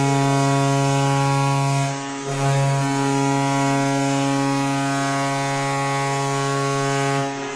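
Hockey goal horn sounding in long, steady, low blasts, with a short break about two seconds in: the signal of a goal.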